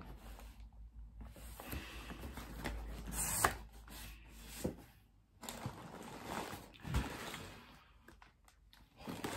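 Cardboard shipping box being opened and handled: soft scraping and rustling of cardboard, with a few light knocks as a boxed toy is lifted out.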